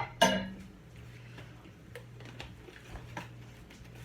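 Kitchen clean-up: a sharp clink of a dish or utensil that rings briefly about a quarter second in, followed by scattered light clicks and taps, over a steady low hum.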